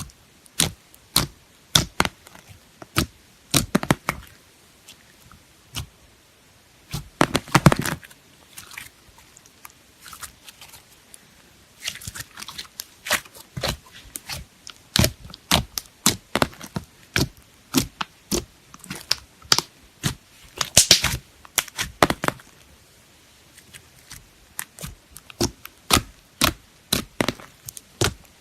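Slime being pressed and squeezed by hand, giving a string of sharp sticky pops and clicks, with denser crackling now and then.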